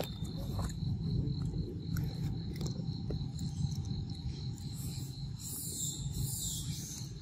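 Steady high-pitched insect drone, as of crickets, over a low rumble. About five and a half seconds in, a louder high hissing buzz swells, dips in pitch and fades.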